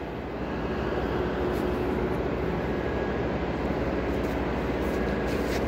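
Compressed air rushing steadily out of an air line, used to blow through a cleaned gate valve and test the air supply. It gets a little louder about half a second in, over a steady low hum.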